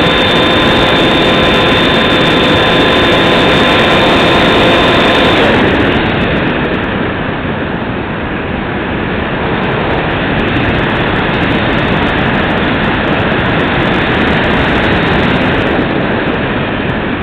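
Bixler 2 model plane's electric pusher motor whining steadily over heavy wind rush on the onboard camera's microphone. About five seconds in the motor whine cuts out and only the rushing airflow goes on.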